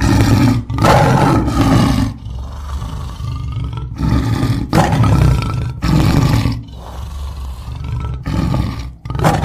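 Adult tiger roaring: a run of about five loud roars. The first starts abruptly and lasts about two seconds, with quieter rumbling between the roars.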